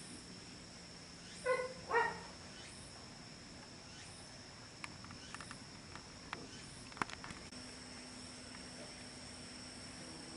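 Insects chirring steadily in a high, even drone, with a dog barking twice about a second and a half to two seconds in. A few faint clicks follow, and a low steady hum comes in about two-thirds of the way through.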